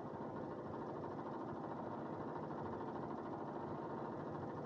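Steady, even background noise, mostly low and muffled, with no thunderclap or other sudden sound.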